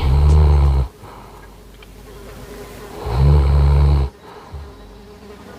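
Dog snoring: two loud, low snores about three seconds apart, each lasting about a second.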